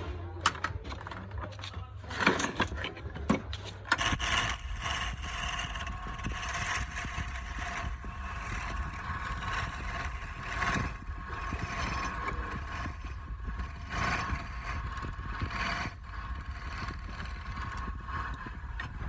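A few knocks and clicks, then about four seconds in a workshop machine's electric motor starts and runs steadily with a constant high whine, stopping shortly before the end.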